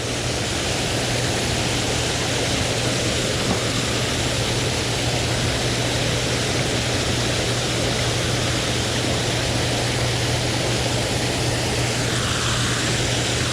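Steady rushing of falling water below a dam, an even roar with a constant low hum underneath.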